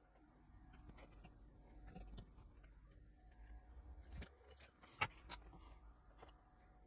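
Near silence with faint handling clicks and taps as LED legs are pushed through and bent over on a small circuit board, and one sharper click about five seconds in.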